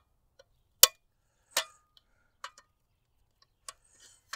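Sharp metallic clicks and clinks from a MidNite Solar MNPV3 combiner box's metal enclosure and its knockout being worked by hand: about four separate clicks roughly a second apart, the loudest about a second in.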